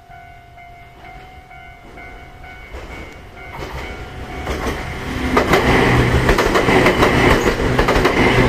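A Japanese level crossing warning bell dings steadily and is soon buried under a Ryutetsu Nagareyama Line electric train. The train builds up from about three seconds in and passes loudly from about five seconds, its wheels clattering over the rail joints.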